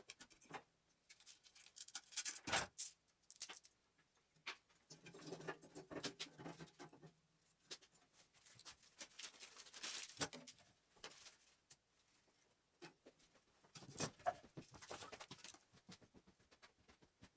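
Faint irregular crackles and sharp clicks with stretches of scratchy rustling, from lighting the cast-iron wood stove for its first firing.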